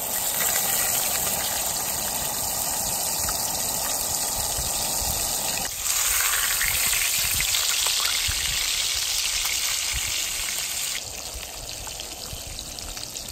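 Scamp fillets sizzling in hot oil in a stainless frying pan on a camp stove. The sizzle gets louder about six seconds in, as a second fillet goes into the pan, and drops back near the end.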